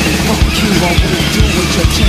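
Loud rock music with drums.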